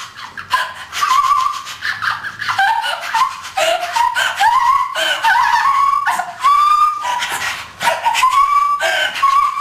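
A girl's voice in a string of short, high-pitched whimpering cries, many rising in pitch and coming about once or twice a second, acted as fright.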